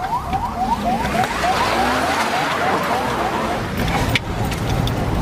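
Electronic siren sounding in quick rising chirps, about four a second, over vehicle and road noise that swells in the middle.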